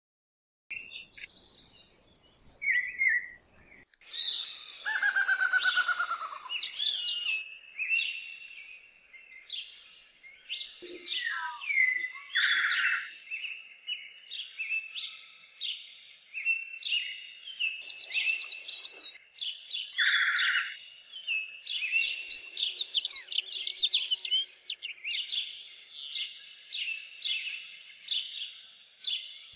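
Birds chirping and singing: a dense run of short high calls and trills, beginning about a second in.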